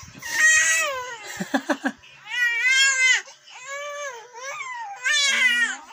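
Young infant of about two and a half months crying in several drawn-out wails, each rising and then falling in pitch. The baby is tired and fussing after straining to turn onto its tummy.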